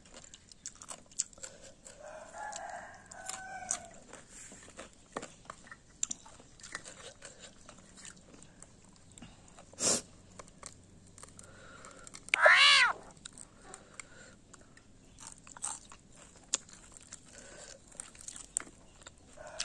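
Mouth-close chewing and crunching of food, with small clicks throughout and a sharp knock about halfway. A little after, a chicken gives one short, loud call, rising then falling in pitch.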